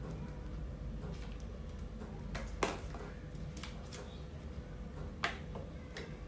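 Handling noise from Bluetooth neckband earphones and their cardboard packaging insert: a few light clicks and taps, the sharpest about two and a half seconds in and again about five seconds in, over a low steady hum.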